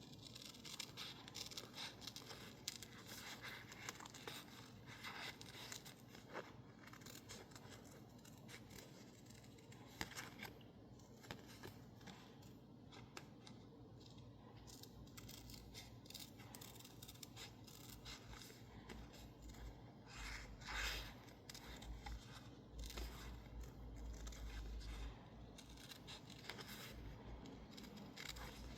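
Small scissors snipping around stickers in label paper: a faint, irregular run of short cuts and paper rustles, with soft low bumps of handling in the last third.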